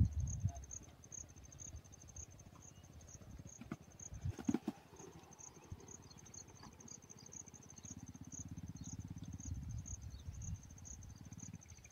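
An insect chirping in a steady, evenly repeated high-pitched pulse, several chirps a second, over a low rumble that grows louder for a few seconds near the end.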